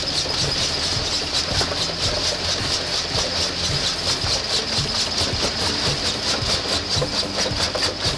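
Heavy crushing machine running: a steady engine hum under an even, rhythmic clatter of about four beats a second.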